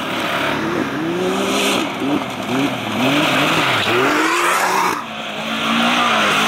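A Can-Am off-road vehicle's engine revving up and down repeatedly as it is driven, over a steady rushing noise, then holding a steadier note from about five seconds in.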